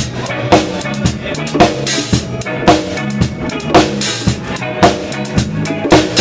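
Reggae band playing live, heard from right beside the drum kit. The kit leads, with a hard kick-and-rimshot accent about once a second over lighter snare and cymbal strokes, and the band's low pitched parts run steadily underneath.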